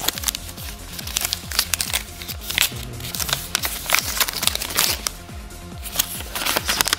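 Paper packaging being handled and unwrapped, with irregular crinkling and rustling. Background music with a steady beat plays under it.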